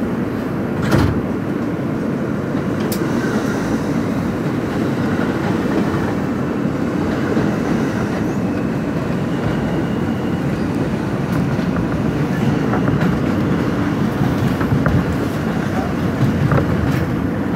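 Interior of an R160 subway car pulling out of a station and picking up speed: a steady rumble of wheels on rail, with a few sharp clicks. An R68 subway train runs close alongside on the next track.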